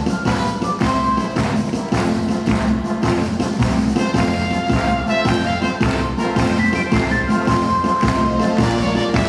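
Lively instrumental music with a steady beat, about two beats a second.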